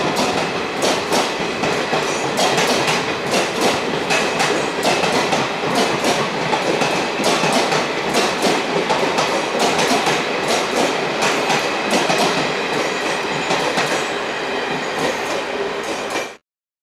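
Duronto Express coaches running through a station at speed, their wheels clattering fast and steadily over the rail joints with a constant rushing rumble. The sound cuts off suddenly near the end.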